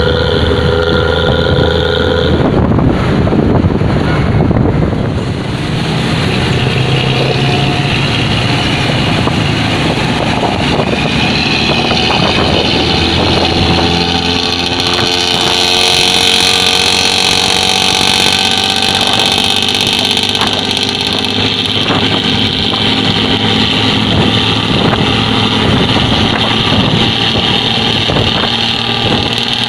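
Bus diesel engine running with a loud, snoring exhaust note, its pitch shifting as it revs. A rush of noise comes a few seconds in.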